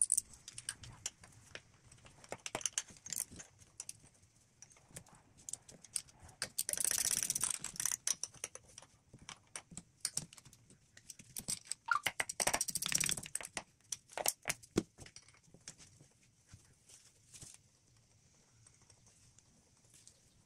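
Hand tools working on the engine: scattered metallic clicks and clinks while the EGR valve's Torx screws are undone. There are two longer runs of rapid ratchet clicking, one about seven seconds in and one about twelve seconds in, and these are the loudest sounds.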